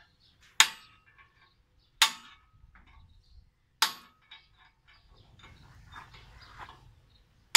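Hammer striking a steel punch held against a steel tractor-frame bracket: four sharp metallic blows, spaced about one and a half to two seconds apart, each with a brief ring.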